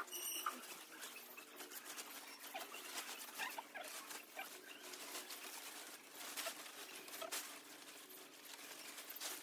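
Nylon tent fabric rustling and crinkling in a run of short, irregular rustles and clicks as it is unfolded and pulled out flat by hand.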